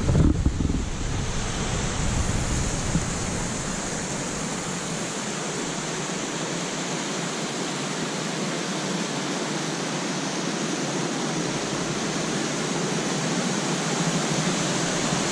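Waterfall rushing steadily, with low wind rumble on the microphone in the first few seconds.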